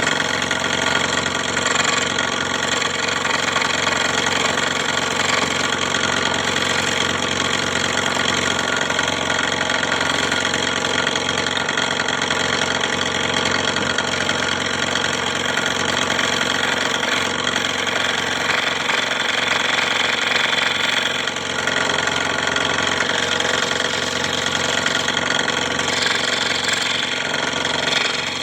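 Scroll saw running steadily, its motor humming and the blade reciprocating without a break.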